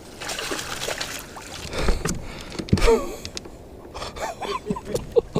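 A man's short gasps and grunts over a steady wash of water and kayak noise, with a few sharp knocks, as a fish is fought from the kayak.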